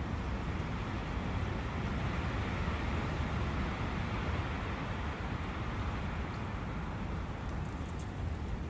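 A brook's flowing water makes a steady rushing noise, even throughout and weighted toward the low end.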